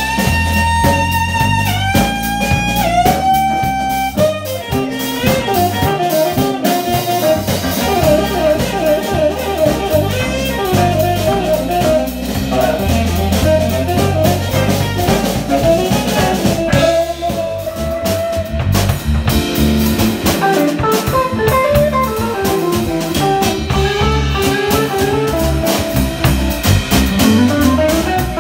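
Live jazz combo playing: a saxophone holds long notes in the first few seconds, then moves into running lines over hollow-body electric guitar, electric bass and drum kit.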